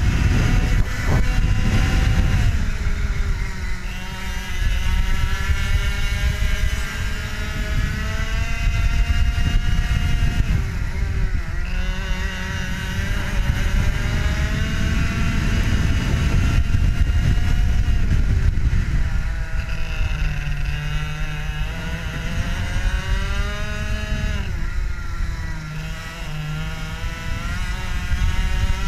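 IAME two-stroke kart engine heard onboard at racing speed, its pitch climbing and falling again and again as the throttle opens and closes, over a heavy rush of wind on the microphone.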